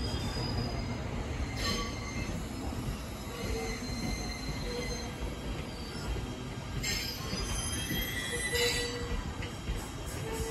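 JR East E353 series electric train rolling slowly alongside the platform as it brakes to a stop, with a low rumble and a few brief high squeals from its wheels and brakes.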